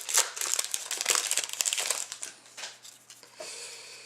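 Hockey card pack wrapper being torn open and crinkled in the hands, a dense crackling that fades out about two and a half seconds in.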